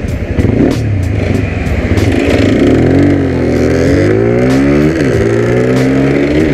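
Zontes 125 motorcycle's single-cylinder engine accelerating under load, its pitch climbing, dropping sharply at an upshift about five seconds in, then climbing again.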